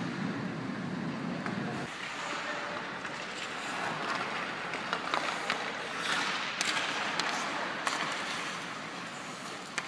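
Ice hockey rink sounds: skate blades scraping on the ice and several sharp clacks of sticks on a puck, over a steady hiss. A low rumble cuts off abruptly about two seconds in.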